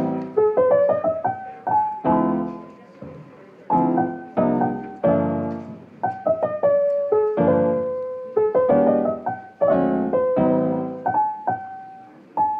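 Background music: a piano tune of struck chords and melody notes that ring and fade.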